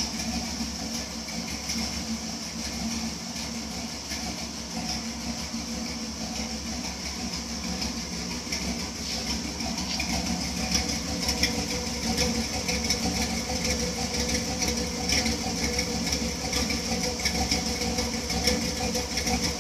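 1973 Chevrolet pickup truck engine idling steadily, heard through its tailpipe. It gets louder about halfway through as the exhaust tip comes close.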